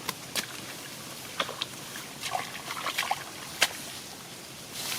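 Shallow rice-field water splashing and sloshing in short, irregular bursts as it is worked through by hand, the loudest splash about three and a half seconds in.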